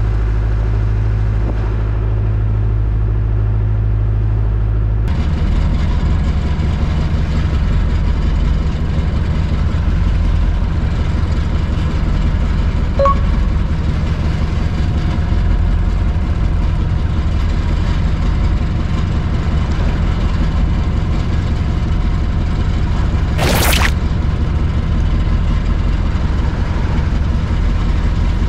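Small fishing boat's engine running steadily, with one short knock near the end.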